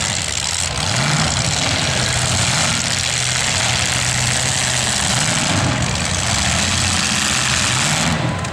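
Demolition derby car engines running loud and revving, their pitch rising and falling again and again as the cars push forwards and back.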